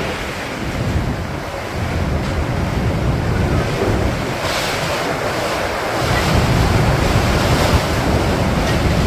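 Blizzard wind gusting hard and buffeting the microphone, a steady rushing noise with a heavy low rumble. It grows louder about two-thirds of the way through.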